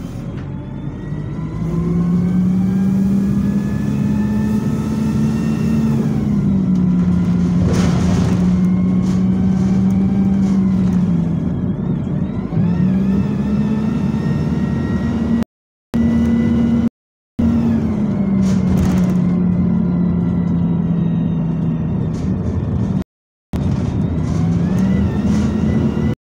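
Bus engine heard from inside the saloon, accelerating through its automatic gearbox: the engine note climbs, then drops back at each gear change, several times over, with a whine rising and falling along with it. The sound cuts out briefly three times.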